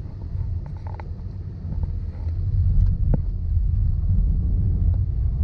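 Low rumble of road and wind noise from a moving vehicle, picked up by an action camera; it grows louder about two and a half seconds in, with a few faint knocks.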